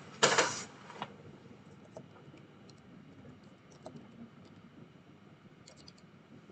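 Faint, sparse keystrokes on a computer keyboard as a username is typed: single taps spread out, then a quick run of several near the end. A short burst of noise comes just at the start.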